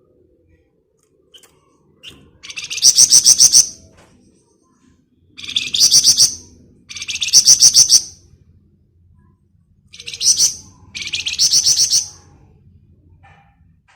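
Flamboyan songbird singing in its rapid 'ngebren' style: five high-pitched bursts of fast rattling trills, each about a second long, with short pauses between.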